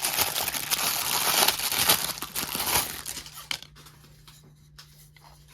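Packaging crinkling and tearing as a carved wooden mug is unwrapped, dense for about three seconds, then dropping to a few faint handling clicks.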